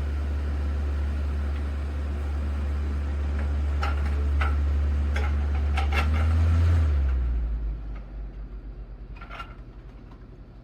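Dreo Lynx S table fan's airflow rumbling low and steady on the microphone, with a few short clicks in the middle. About seven seconds in the rumble drops away and fades with a pulsing as the fan slows.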